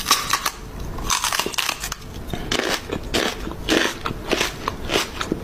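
A person's lips making rapid, repeated kissing smacks, a quick irregular string of short clicks.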